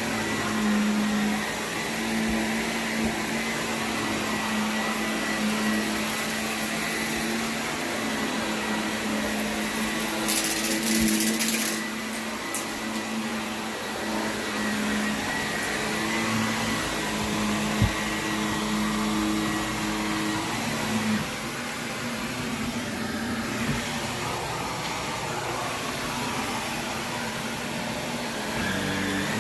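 Shark vacuum cleaner running steadily over carpet: a constant motor hum with a thin high whine. About ten seconds in there is a brief, louder hissy rush.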